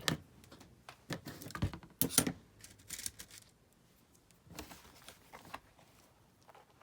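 Scattered small clicks and rustles of hands fitting small gold metal eyelets into punched holes in a paper craft piece, loudest about two seconds in.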